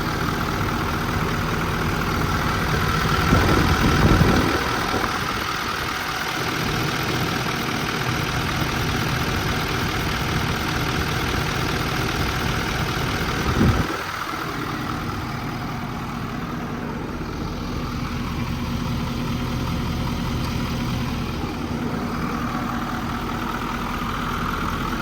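Ford 6.7 Power Stroke V8 turbo-diesel running at low speed and idle while the truck is manoeuvred, swelling louder about four seconds in. A short knock comes about halfway through, after which the engine is a little quieter.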